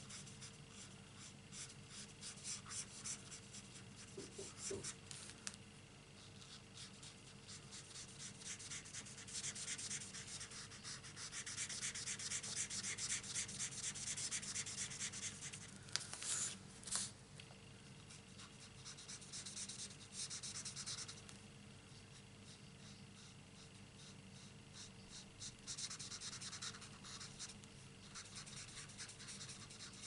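Marker tip rubbing and scratching across cardstock in many quick short strokes while colouring in. It is faint, heavier for a few seconds near the middle, with two sharp ticks a little past halfway.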